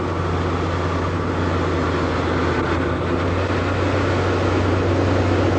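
Steady mechanical drone, a constant low hum under a loud, even hiss, like a motor or machine running without a break.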